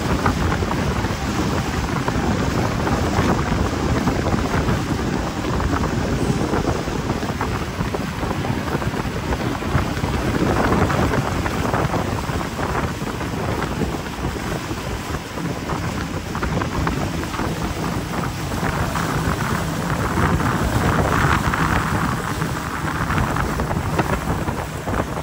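Motorboat under way at speed on its outboard motor: a steady, loud rush of wind over the microphone and water against the hull, with the engine's drone faintly beneath.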